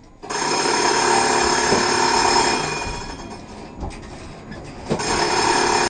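Tram warning bell ringing, sounded at someone in the tram's path. It dies away about three seconds in and rings again about a second before the end.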